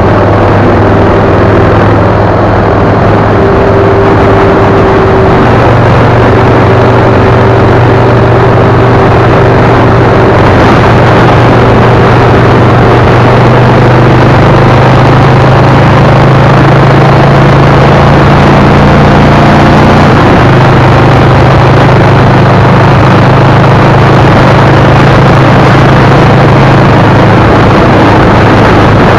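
Car driving at highway speed, heard from inside the cabin: a loud, steady drone of engine hum and road noise. The engine's low hum rises slightly in pitch about five seconds in and wavers briefly about two-thirds of the way through.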